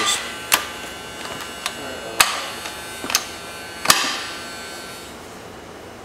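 Short-throw shifter on a manual transmission being worked through the gears: about half a dozen sharp metallic clicks and clunks with a brief ring, the loudest about two seconds in and another near four seconds.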